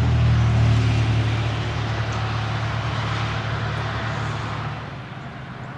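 A motor vehicle's engine running close by, a steady low hum with traffic noise that fades away about five seconds in.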